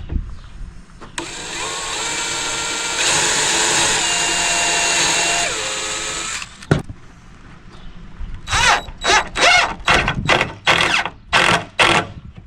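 Cordless DeWalt drill driving a screw into wood: a run of about five seconds with the motor pitch stepping up, then dropping as the screw seats, followed by a click and, near the end, a series of short quick trigger bursts.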